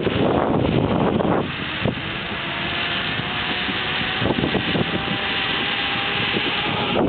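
Zip line trolley running fast along the steel cable, with wind rushing over the microphone: a steady rushing noise with a faint steady whine through the middle.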